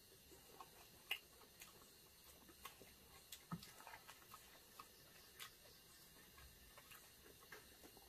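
Near silence with scattered faint clicks and small ticks from eating: chewing and mouth sounds, and egg rolls being handled in their foil wrappers. The sharpest click comes about a second in, and a small low knock comes a little past the middle.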